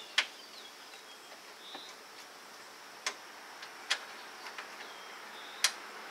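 A few sharp, irregularly spaced metal clicks as a bolt and hand tools are worked in a truck's engine bay, the loudest about a fifth of a second in and one near the end. Under them runs a steady high drone of insects with short chirps.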